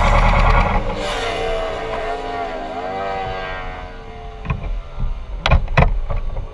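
Car engine running loudly, then falling away about a second in to a quieter pitched drone that dips and rises in pitch. Three sharp knocks follow in the last two seconds.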